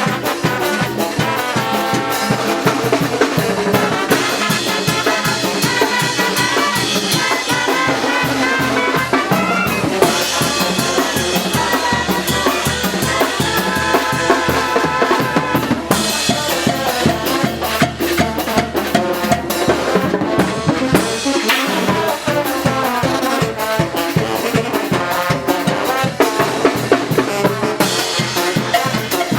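Mexican brass band playing lively muerteada carnival music: brass instruments carry the tune over a fast, steady beat of drums and percussion.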